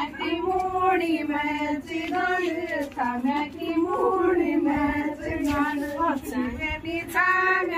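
A group of women singing a devotional kirtan song together in unison, one melody line in short repeated phrases.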